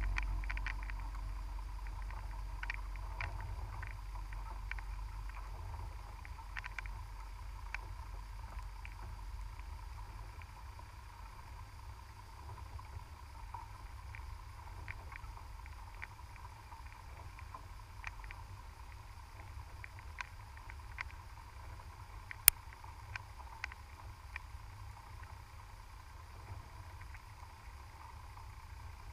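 Underwater sound picked up by a camera in a housing on the seabed: a low rumble of moving water that fades over the first ten seconds or so, under a faint steady tone. Scattered faint clicks run throughout, with one sharp, loud click about 22 seconds in.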